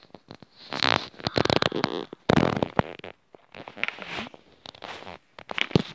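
Handling noise from the camera phone being moved: irregular rubbing and rustling with sharp knocks and clicks, in loud uneven bursts.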